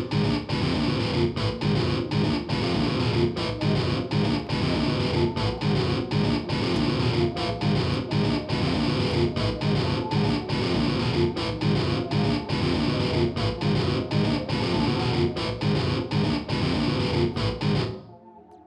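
Background music with strummed electric guitar over a steady beat, cutting off shortly before the end.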